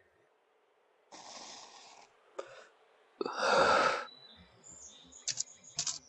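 A cartoon character takes a drag on a cigarette, a soft hissing inhale, then blows out one long, heavy breath of smoke. A few short, high chirps follow near the end.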